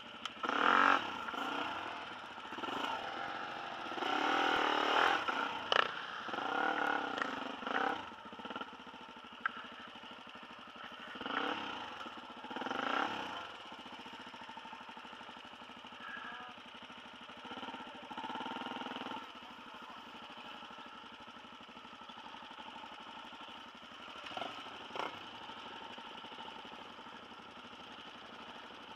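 Off-road dirt-bike engines revved in a series of bursts while the bikes are worked through a muddy single track, then settling to a steady idle for the second half.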